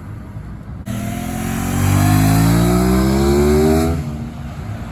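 A car engine revving hard under full acceleration, its pitch rising steadily for about three seconds before it drops away suddenly near four seconds in.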